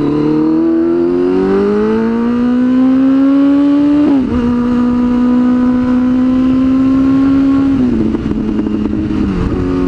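Sport motorcycle engine pulling hard under acceleration, its pitch climbing for about four seconds, dipping briefly, then holding steady before falling away about eight seconds in.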